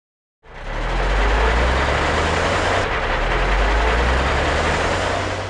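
Heavy truck engine running steadily, fading in about half a second in and fading out at the end.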